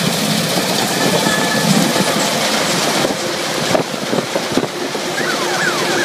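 New Hind 999 combine harvester running and cutting standing wheat: a steady, loud machine noise with many small knocks.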